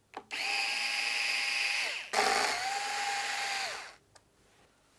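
Small electric screwdriver running twice, about a second and a half each time, backing out the screws that hold the pod's base plate; each run holds a steady pitch and winds down as it stops.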